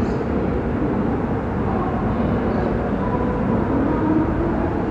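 Indian Railways LHB air-conditioned passenger coaches rolling past along the platform: a steady rumble of steel wheels on the rails.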